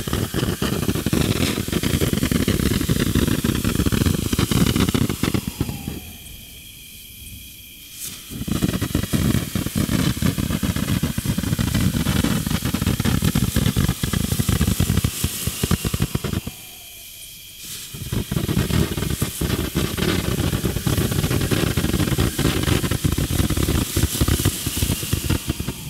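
Cutting Edge "Aloha Time" 200-gram firework fountain spraying sparks with a steady crackling hiss. The spray falls away twice, about six and about seventeen seconds in, for a second or two before surging back.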